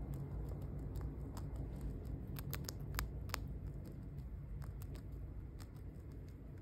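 Long-haired Syrian hamster chewing dry food, a quick irregular run of small crisp clicks as it nibbles.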